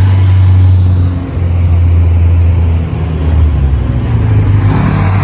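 A loud motor vehicle engine running with a deep low drone, its pitch rising and falling slightly as it revs.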